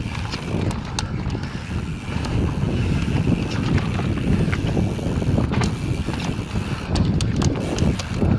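Mountain bike riding a dirt trail: tyres rumbling over the ground with wind buffeting the microphone, and scattered sharp clicks and rattles from the bike.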